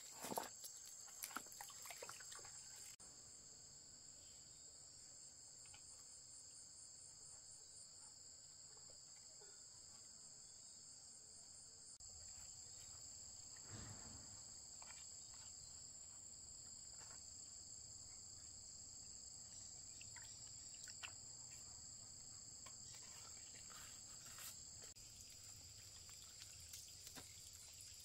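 Steady, high-pitched chorus of forest insects, with a few faint knocks now and then.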